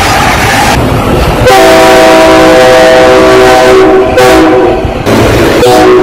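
Train horn sounding a long multi-note chord blast beginning about a second and a half in, with a brief break, then a shorter blast just before the end, over the rush of a passing train. The audio is boosted so loud that it distorts.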